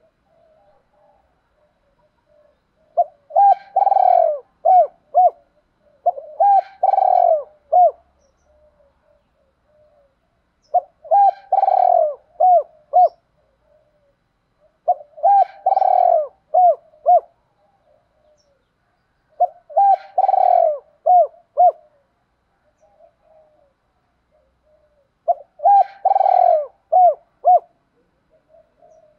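A caged decoy spotted dove cooing: six phrases about every four to five seconds, each a few short clipped notes around one longer, louder middle coo. Soft, quiet calls come between the phrases.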